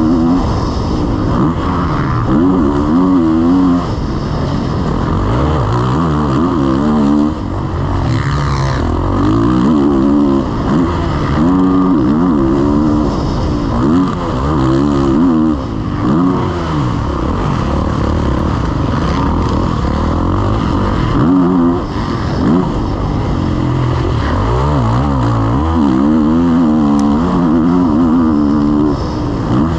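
Motocross bike engine heard from on board while riding a dirt track, its revs climbing and dropping over and over as the rider accelerates, shifts and backs off for turns and jumps.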